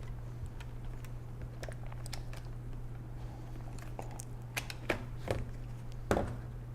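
A few light clicks and taps of a laptop's plastic casing being handled as its battery is unlatched and taken out, over a steady low hum.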